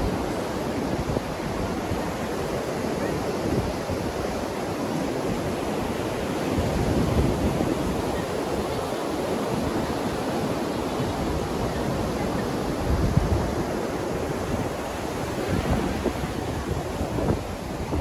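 Ocean surf breaking and washing up a sandy beach in a steady rush, with wind buffeting the microphone in low rumbles now and then, most strongly about thirteen seconds in.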